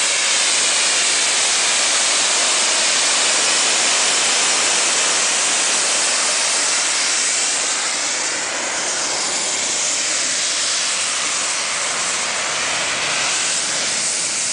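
Loud, steady hiss of escaping steam from a rebuilt Bulleid West Country class steam locomotive departing, with the sound sweeping slightly as the engine, tender and coaches move past.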